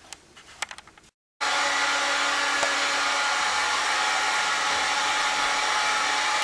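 A heat gun blowing steadily, drying freshly sprayed Kilz Upshot stain-blocking primer on a ceiling. It starts abruptly about a second and a half in, after a few faint clicks and a brief dropout.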